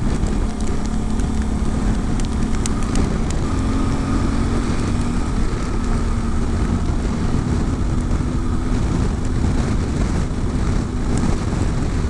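Yamaha Ténéré 700's parallel-twin engine running at a steady riding pace, over a rush of wind and road noise. The engine note rises slightly about three and a half seconds in, then settles back.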